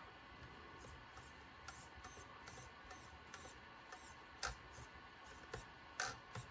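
Faint, short whirs of a micro steering servo in an Axial SCX24 crawler as it swings the steering from side to side, about two to three strokes a second, with a few sharper clicks about four and a half and six seconds in.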